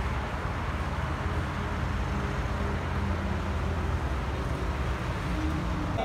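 Steady low rumble of motor-vehicle noise, engine and road sound without let-up.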